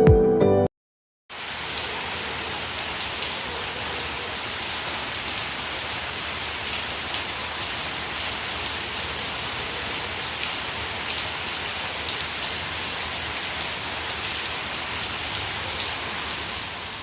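Steady rain falling, with scattered drops ticking on a surface; it fades out near the end.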